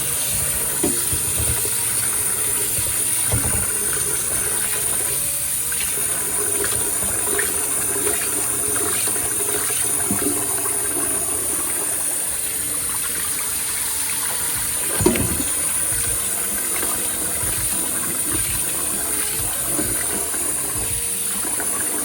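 Kitchen tap running steadily into a sink, with a few light knocks and a sharper clunk about fifteen seconds in.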